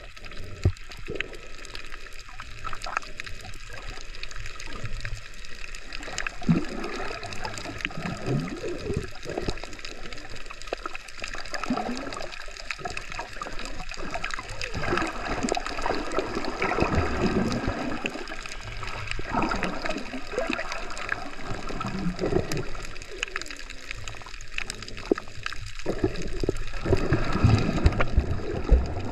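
Muffled sloshing and gurgling of moving water, heard through a camera held underwater. The sound swells and fades irregularly, with a few small clicks.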